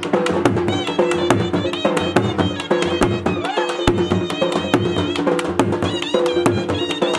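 Traditional dhol drumming: large double-headed barrel drums beaten with sticks in a fast, driving dance rhythm, with a melody instrument playing over the beat.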